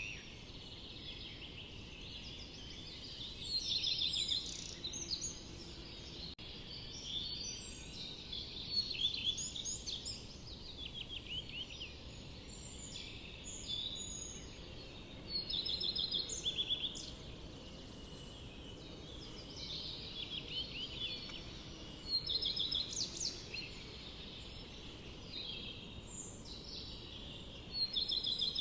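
Forest songbirds singing: short trilled and chirping phrases every couple of seconds, some overlapping, over a steady low background hiss.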